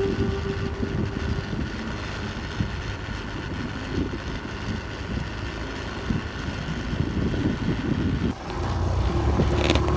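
Motor scooter ridden along a sandy track, with wind buffeting the microphone in an irregular low rumble. About eight seconds in the sound changes to the scooter's small engine running at a steady hum.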